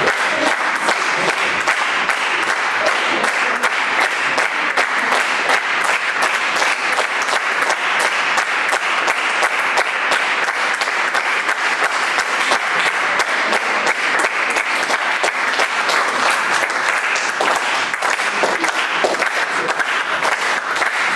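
Audience applauding steadily, many hands clapping densely.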